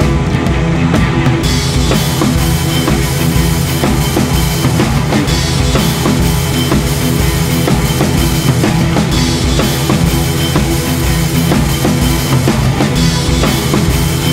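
Rock music with a steady drum-kit beat.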